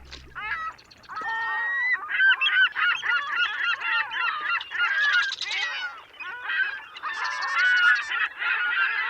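A flock of geese honking, many calls overlapping without pause.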